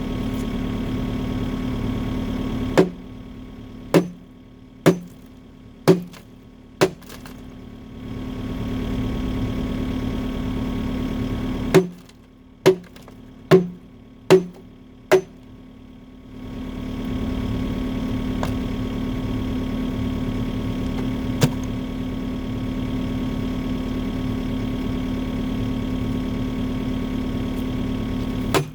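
Excavator engine running steadily, with two runs of five sledgehammer blows on the steel bucket, about one a second, each with a short metallic ring, knocking hardened concrete off the bucket. The engine's low rumble drops away while the blows land and comes back after them.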